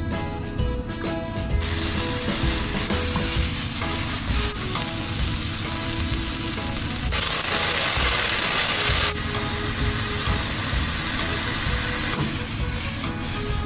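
Strips of sweet potato peel sizzling as they stir-fry in hot oil in a wok. The sizzle starts about one and a half seconds in and is loudest for a couple of seconds midway, over light background music.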